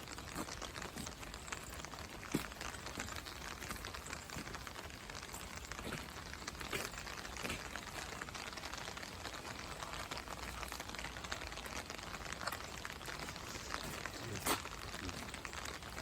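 Steady rain falling, an even hiss full of small pattering drops, with a few louder single taps.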